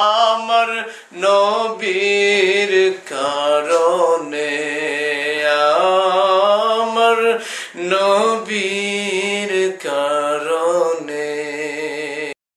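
Male voice singing a Bengali naat, a devotional song in praise of the Prophet, in long held notes that waver and glide between short breaths. The singing cuts off abruptly near the end.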